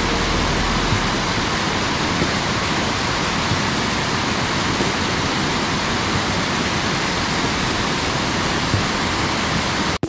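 Steady, even rushing noise of running or falling water.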